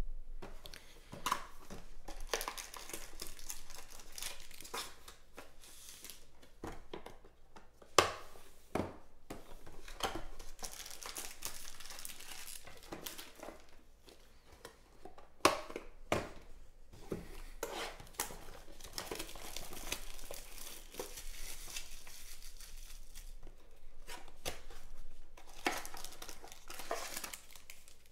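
Foil trading-card packs crinkling and a cardboard card box being opened and handled, with a few sharp knocks among the rustling.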